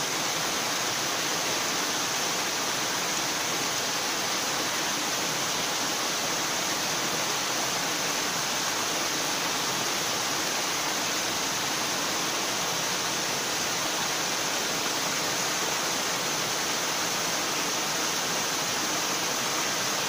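Small waterfall pouring in several strands over a rock ledge into a pool, a steady, even rush of falling water.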